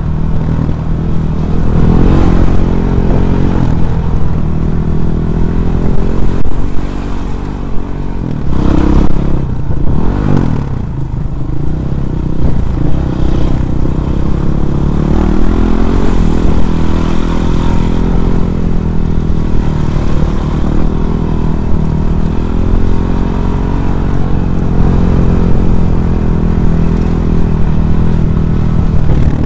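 Dirt bike engine heard from on board while riding a rough dirt trail, its pitch rising and falling again and again as the throttle is opened and closed. Rattles and a few loud knocks from the rough ground come through around nine to ten seconds in.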